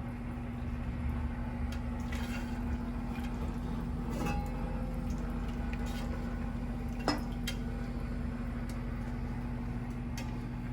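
Utensil stirring a thick cream sauce in a skillet: soft wet squishing with scattered light clicks and scrapes against the pan, one sharper click about seven seconds in, as the Parmesan melts into the sauce.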